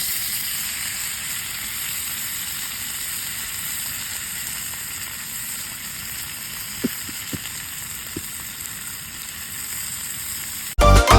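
Heavy rain falling, a steady, even hiss, cut off abruptly near the end by loud music.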